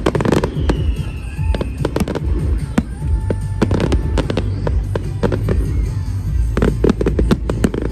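Fireworks display going off: a rapid, irregular series of sharp bangs and crackles from bursting shells, with music playing underneath.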